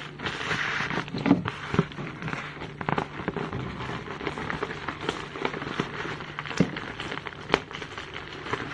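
Black plastic parcel wrapping crinkling and crackling as the taped package is handled, turned over and set down on the table, with irregular sharp clicks and rustles; near the end the plastic is being picked open.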